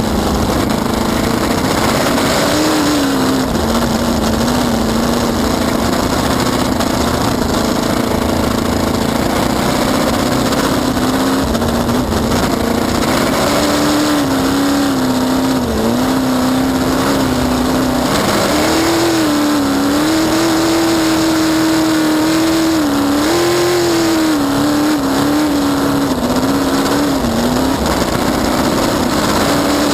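Cracker box race boat's inboard engine running hard at racing speed, heard onboard with heavy wind and water noise. Its pitch shifts as the throttle is worked: it drops about a second in, rises around two-thirds of the way through, then dips and recovers several times.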